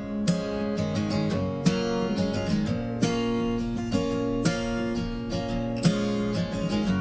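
Background music: strummed acoustic guitar chords with a steady rhythm, no vocals.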